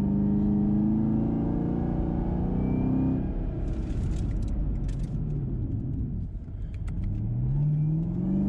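Camaro ZL1 1LE's supercharged 6.2-litre V8, heard inside the cabin, pulling hard in gear with its pitch climbing, then falling away about three seconds in as the car slows. It picks up and climbs again near the end. This is one cycle of hard acceleration and braking to bed in new brake pads.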